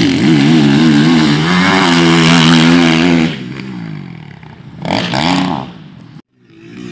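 Motocross bike engine revving hard close by, its pitch rising and falling with the throttle, then falling away after about three seconds. A shorter burst of revving comes about five seconds in, and the sound cuts out briefly near the end.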